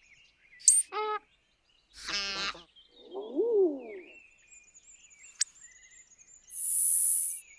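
A series of separate animal calls over faint high bird chirping: a quick rising whistle, two short calls with rich harmonics, a lower wavering call and a sharp click. A loud, high hissing buzz lasting nearly a second comes near the end.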